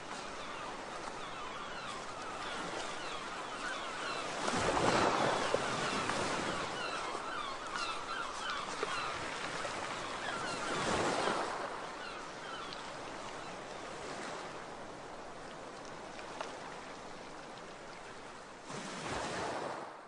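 Sea waves washing in steadily, with swells growing louder about five seconds in, again near the middle and just before the end.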